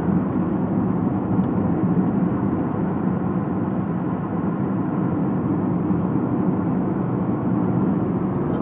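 Steady drone of a car driving along the road, heard from inside the cabin.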